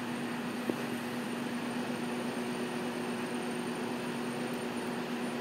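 Shop Sabre CNC router running its homing sequence, the gantry traversing on its servo drives with a steady hum and a faint whine. There is a single short click about a second in.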